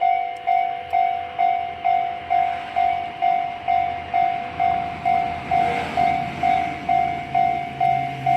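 Japanese level-crossing warning bell ringing its 'kan-kan' tone, about two strikes a second, each fading before the next, meaning the crossing is active for an approaching train. A low hum comes in about halfway.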